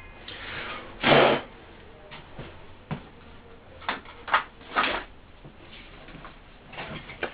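A few short scraping and knocking handling sounds: the loudest about a second in, a cluster of three around four to five seconds, and another pair near the end.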